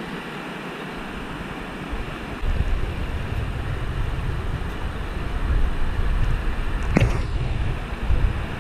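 Steady rushing of river rapids, then from about two and a half seconds in a louder, low rumbling noise on the camera microphone as the group walks the trail, with one sharp knock about seven seconds in.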